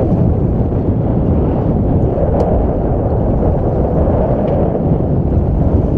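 Wind buffeting the microphone aboard a sailboat under way: a loud, steady low rumble.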